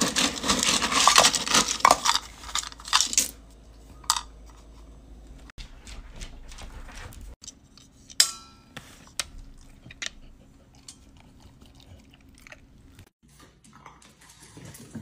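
A cat eating dry food: kibble clattering and crunching, densest and loudest in the first three seconds, then quieter, scattered crunches and clicks.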